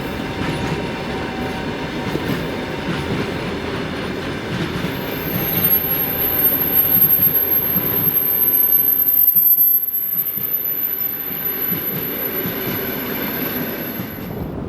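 Passenger train behind a TEP70 diesel locomotive rolling past, wheels clacking over the rail joints. A high steady whistle comes in about a third of the way through and stops just before the end, typical of an early TEP70's turbocharger.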